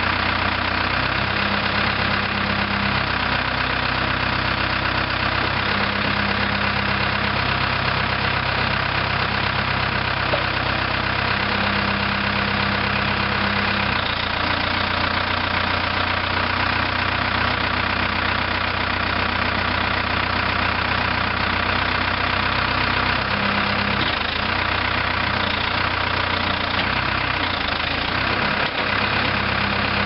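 1999 New Holland LB75 backhoe's 70 HP diesel engine running steadily at idle.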